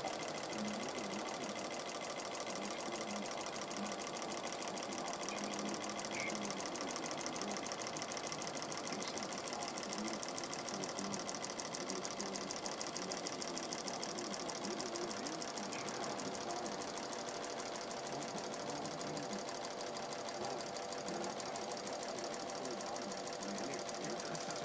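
Vintage toy electromagnetic solenoid motor running steadily on 3 volts, its solenoid driving a brass flywheel with a rapid, even ticking.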